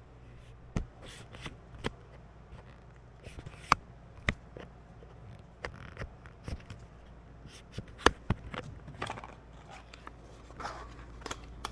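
Scattered clicks, taps and rustles of tools and small parts being handled during wiring work, the sharpest knock about eight seconds in, over a low steady hum.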